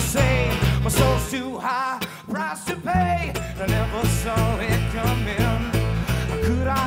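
Live band playing an instrumental passage of a rock/country song: upright bass, strummed acoustic guitar and drums, with a bending lead line on top. The bass drops out for about a second and a half, then comes back.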